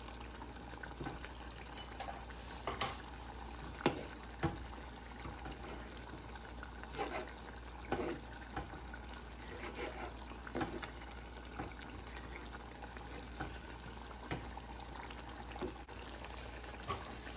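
A spoon and a metal ladle knocking and scraping inside an enamel saucepan as chicken koftas are turned over in simmering curry gravy: scattered short clicks over a steady low hiss.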